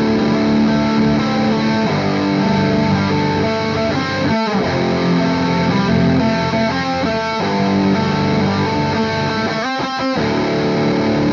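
Two electric guitar parts playing together: sustained, ringing add9-style chord changes with a riff line running underneath, the chords shifting every couple of seconds.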